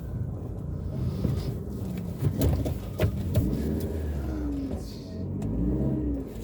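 Car driving, heard from inside the cabin: steady engine and road rumble, with a few sharp knocks around the middle. The engine pitch rises and falls twice in the second half.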